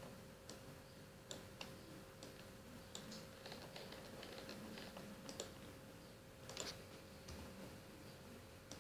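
Faint, scattered clicks of a computer mouse and keyboard at irregular intervals, over a faint steady hum.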